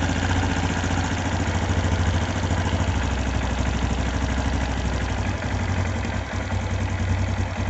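Suzuki Skydrive scooter's single-cylinder four-stroke engine idling steadily.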